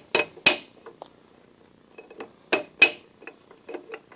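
Soft-faced mallet tapping on the spindle assembly of a Wards Logan lathe headstock to drive the spindle out: sharp knocks with a brief metallic ring, two quick pairs of blows a little over two seconds apart, then a few lighter taps.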